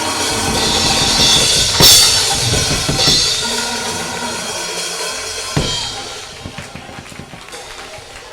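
Church band drum kit playing with crashing hits over sustained keyboard chords, the music dying down over the last few seconds.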